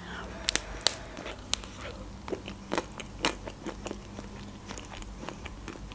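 Biting into the chocolate shell of a white-chocolate-coated ice cream bar and chewing: the coating cracks with sharp crunches, then small crackles and mouth clicks as it is eaten.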